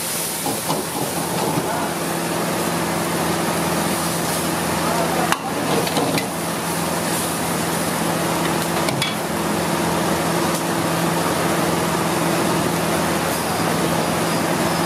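Liquid hissing and bubbling in a hot iron wok over a gas burner, a steady sizzle with a low hum underneath. A steel ladle knocks and scrapes against the wok a few times, around five and nine seconds in.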